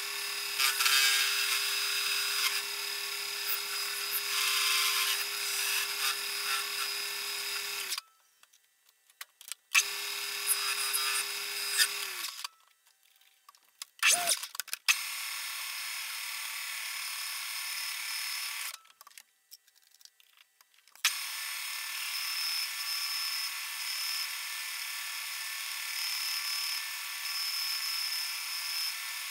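Metal lathe cutting a welded chromoly steel peg, first turning it with a carbide insert tool and later drilling it with a twist drill. The cutting noise is steady, with a steady hum under it in the first part and a short falling whine about halfway. It breaks off to near silence three times.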